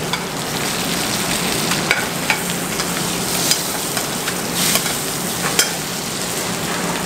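Butter sizzling in a sauté pan as a pompano fillet is basted with a spoon of browning butter, with a few short clinks of the spoon against the pan.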